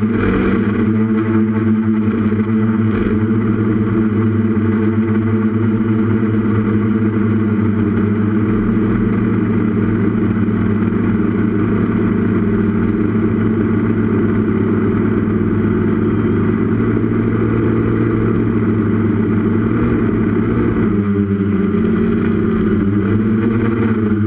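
Brushless motors and propellers of a 6S FPV quadcopter whining steadily as it cruises, heard up close from its onboard camera. The pitch dips and wavers briefly near the end as the throttle changes.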